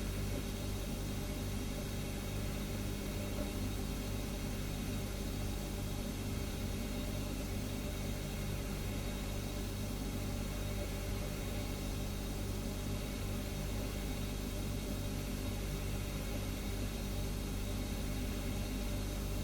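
Refrigerator humming steadily: a constant low hum with a faint hiss over it.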